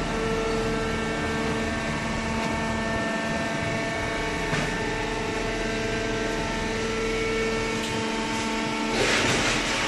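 Paper baler machine running: a steady mechanical hum with several held tones, and a short burst of hissing noise near the end.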